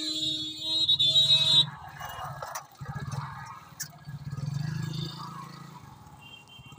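A loud pitched tone sounds in a few short blasts for the first second and a half. Then a motorcycle engine runs and revs up twice as the bike pulls away, fading near the end.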